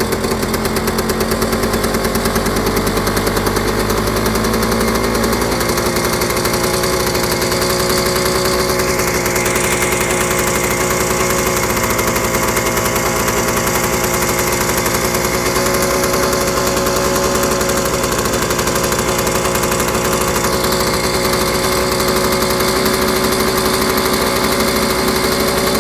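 The single-cylinder two-stroke engine of a BSA 175 cc (Bantam) motorcycle running steadily at a fast idle after being kick-started, its first run after standing all winter. Its pitch rises slightly about five seconds in, then holds steady.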